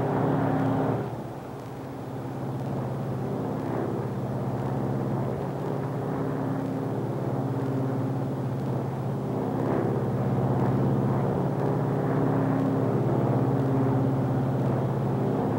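Lockheed Super Constellation's radial piston engines and propellers droning in flight, with a slow throbbing as the propellers beat against each other. It drops about a second in, then grows louder over several seconds as a feathered engine is brought back to power.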